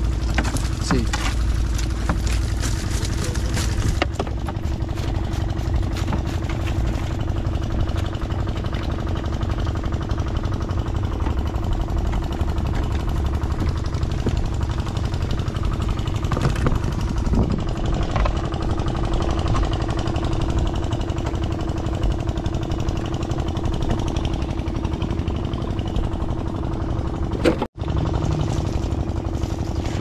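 A motor running steadily, a low rumble with a constant hum, with light clicks over the first few seconds. The sound cuts out for an instant near the end.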